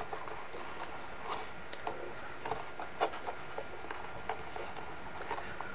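Faint rustling and light ticks of a cardstock box being turned and adjusted by hand, with one sharper click about three seconds in.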